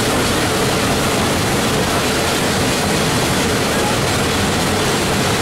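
Steam locomotive running and pulling the train, heard as a loud, steady noise from the open car right behind it.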